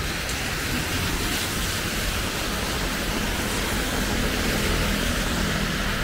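Steady rain hiss, with the low hum of traffic engines underneath.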